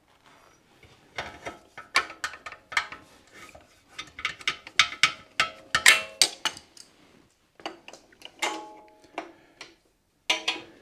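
Metal hand tools clinking and knocking on a motorcycle's rear wheel axle fittings while the axle nut is worked loose with makeshift tools: irregular sharp clicks, some with a short metallic ring, broken by short pauses.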